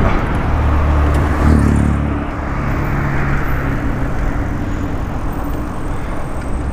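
Road traffic and rushing air heard from a moving bicycle on a city road, with a low steady hum, loudest in the first two seconds, that then eases.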